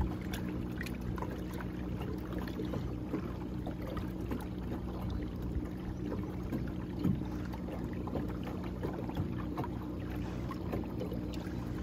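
WaterSnake ASP24 12-volt electric trolling motor (24 lb thrust) running steadily under way, a low even hum, with water washing along the kayak hull.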